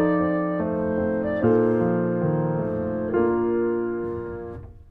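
Background music: slow sustained keyboard chords changing about every second and a half, the last one fading out near the end.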